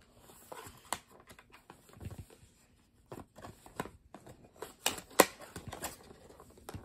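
Cardboard toy packaging being handled and pulled apart: scattered rustles, scrapes and taps, with a sharper snap about five seconds in.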